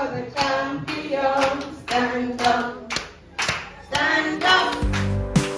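A group of people singing together with rhythmic handclapping. Near the end, recorded music with a deep, steady bass comes in.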